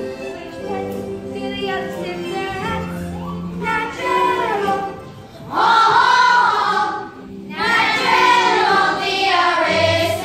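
Children singing a musical-theatre number over instrumental accompaniment; the singing grows loud about halfway through.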